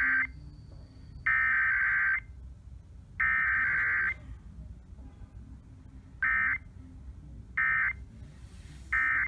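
Emergency Alert System SAME digital data bursts for a required weekly test. The tail of one header burst is followed by two more header bursts of about a second each, then three short end-of-message bursts about 1.3 s apart.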